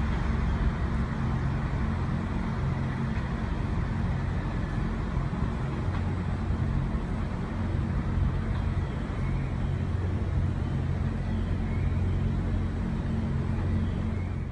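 Diesel railcar engine running with a steady low drone and hum.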